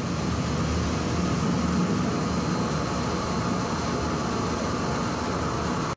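Small homemade diesel burner firing with a steady rushing noise of flame and forced air.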